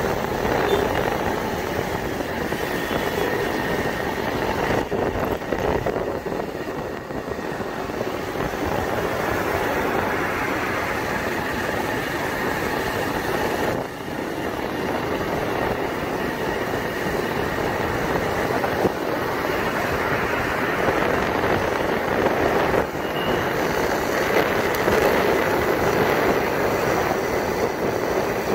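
Steady rush of wind and road noise on a motorcycle riding along at about 45 km/h, with no separate clear sound standing out.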